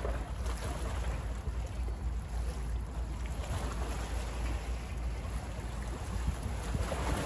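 Small bay waves lapping and splashing at the shore, with a steady low rumble of wind buffeting the microphone. The wash of water swells briefly at the start and again near the end.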